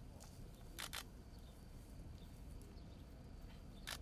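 Hushed outdoor quiet during a minute of silence at a graveside: a low rumble of open-air ambience with a few faint bird chirps. A sharp double click sounds about a second in, and another single click near the end.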